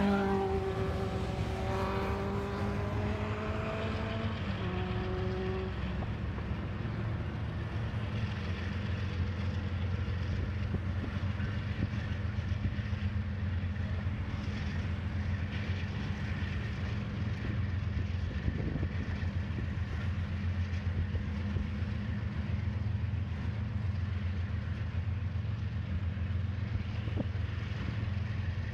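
Freight train cars rolling past with a steady low rumble and hum. A pitched tone with several notes slides slowly down and fades out in the first few seconds.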